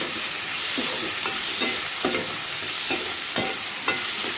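Onion, ginger-garlic and tomato sizzling in hot oil in a kadai while a spatula stirs them, scraping the pan about twice a second over a steady frying hiss.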